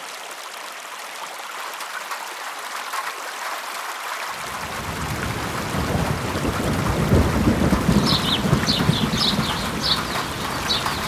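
Rain sound effect: a steady hiss of rain, with a low thunder-like rumble coming in about four seconds in and growing louder, and a run of short high chirps near the end.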